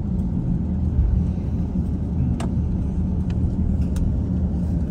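Cabin noise of an Airbus A350-900 taxiing: a steady low rumble from its Rolls-Royce Trent XWB engines at taxi power and the wheels rolling over concrete. A couple of faint clicks come through, about two and a half and four seconds in.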